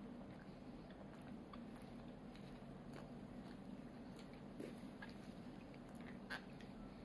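A toddler chewing a fried shrimp, with faint wet mouth sounds and scattered small clicks, the loudest one a little before the end, over a steady low room hum.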